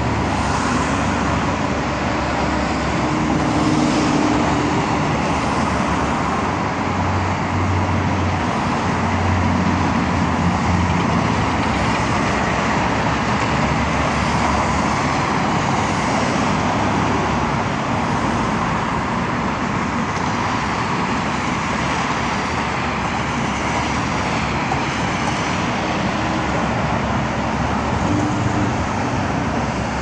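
Steady road traffic noise from a busy expressway: the continuous hiss of tyres with the low hum of car and truck engines, swelling now and then as heavier vehicles pass.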